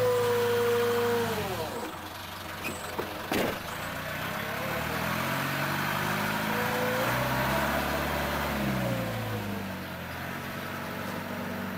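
A vehicle engine revving up and down: a high note that falls away after about a second and a half, then climbs and drops again in the middle, with one sharp knock about three and a half seconds in.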